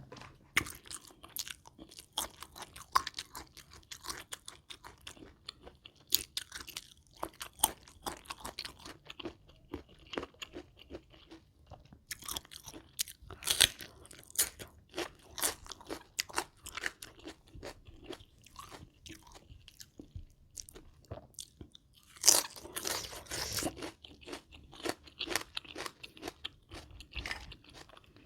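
Close-miked chewing and crunching of mouthfuls of a spicy rice-noodle salad with raw shrimp and crisp fresh vegetables: irregular crunchy bites throughout, with louder bursts about halfway and about three quarters of the way through.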